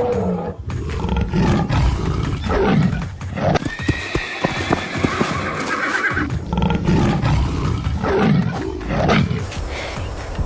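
Animal calls: several gliding calls, with one long high-pitched call held for about two seconds, from about four seconds in.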